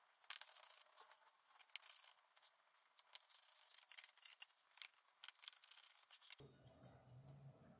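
Faint clicks, taps and scrapes of small parts and tools being handled while reassembling a Mac mini M4. A low steady hum comes in near the end.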